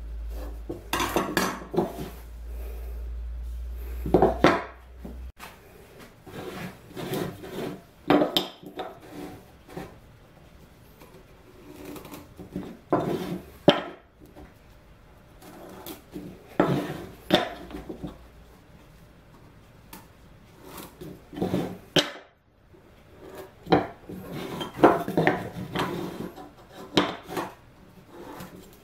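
Hand-tool handling on a wooden workbench while marking out plywood: a metal square and ruler set down and shifted, pencil scratching on the plywood, and irregular knocks and clatter in clusters. A low steady hum for the first five seconds stops abruptly.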